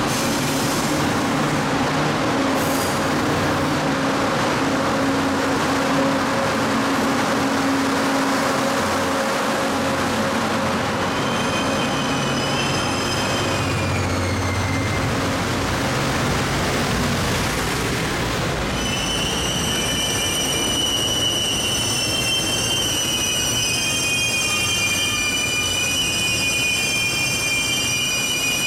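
Cassiopeia sleeper train's E26-series cars rolling slowly past, pushed from the rear by an EF510 electric locomotive, with a steady rumble. High-pitched metallic wheel squeal sets in about eleven seconds in, fades, and returns louder and continuous over the last ten seconds.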